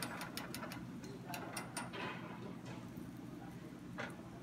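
Leaves frying in a pan of foaming fat, giving off a quick run of sharp crackling pops, then a second short run, over a steady low kitchen hum; a couple of louder knocks follow.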